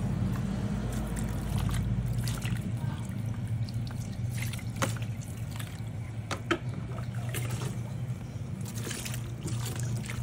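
Water trickling and splashing in a plastic basin as a puppy's wet fur is washed, with small scattered splashes. A steady low hum runs underneath throughout.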